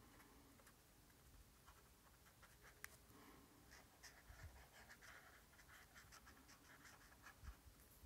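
Faint scratching of a Tombow brush pen stroking ochre ink onto sketchbook paper. The strokes come thicker in the second half, with a small tick about three seconds in.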